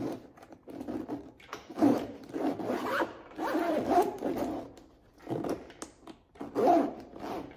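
Zipper on a Can-Am fabric door storage bag being pulled open and shut, several quick zips one after another.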